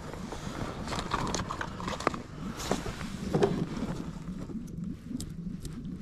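Irregular light knocks and clicks of gear and hands against a plastic kayak hull, with handling rustle.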